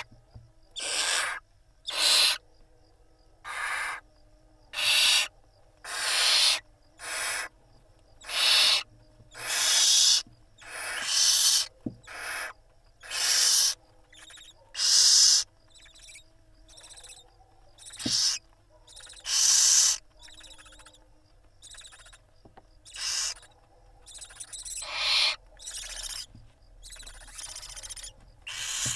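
Barn owls in the nest giving repeated harsh, hissing screeches, each about half a second to a second long and coming every second or so, some loud and some faint.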